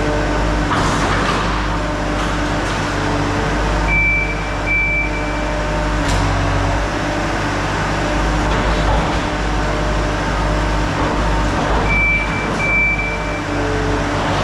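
Skid steer's engine running steadily, with two pairs of short high beeps about four and twelve seconds in.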